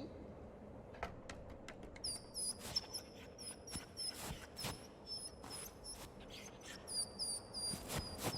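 Quick, high-pitched animal-like squeaks or chirps repeating over and over, mixed with a scatter of small clicks and taps that start about a second in.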